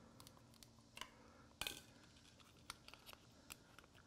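Faint clicks and scraping of a screwdriver driving a screw into the plastic housing of an in-wall outlet box, with one sharper plastic click about one and a half seconds in.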